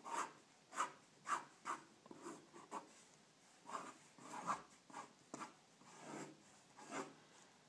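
Pencil scratching on drawing paper in a dozen or so quick, short strokes, about two a second, as loose sketch lines are laid down.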